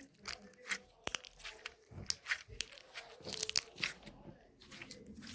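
Homemade slime being squeezed and stretched by hand: a quick, irregular run of small crackles and pops.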